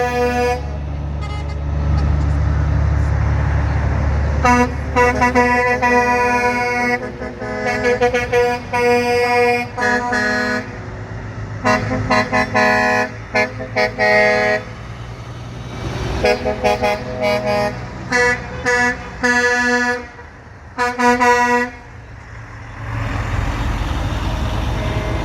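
Truck horns sounding in a long run of blasts, some short toots and some held for a second or two, all on one tone. A low truck-engine rumble fills the first few seconds, and again near the end once the horns stop.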